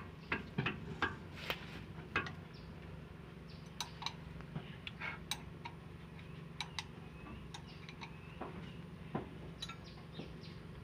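Light metal clicks and clinks at irregular intervals, from hydraulic gauge fittings (quick couplers) being handled and fitted, over a steady low hum.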